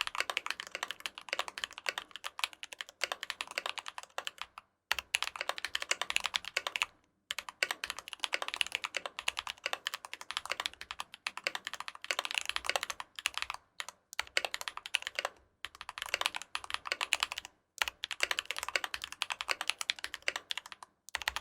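Fast typing on a custom KBD75 v3.1 mechanical keyboard fitted with Holy Panda tactile switches lubed with 205g0: dense runs of keystrokes in bursts of a few seconds, broken by short pauses.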